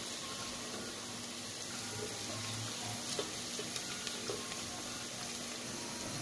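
Chopped onions frying in oil in a metal pot, giving a steady sizzle, with a few light clicks from a wooden spatula stirring in the pot about halfway through.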